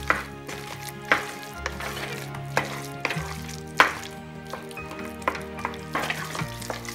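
A metal spoon stirring a thick carrot halwa mixture in an aluminium pressure cooker, scraping and knocking against the pot about once a second, over background music with held chords.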